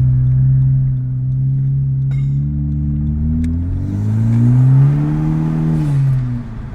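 Turbocharged 1.5-litre four-cylinder of a 2018 Honda Civic Hatchback Sport, heard from inside the cabin: revs held steady, then climbing in pitch under acceleration about two and a half seconds in, and easing back down near the end.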